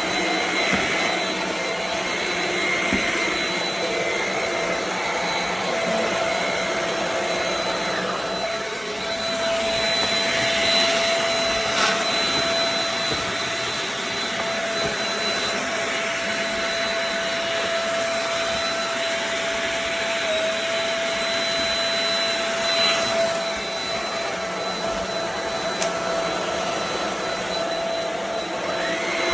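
Shark Rocket Pet Plus corded stick vacuum running steadily: a continuous motor whine over airflow hiss, with a brief slight dip in pitch about two-thirds of the way through.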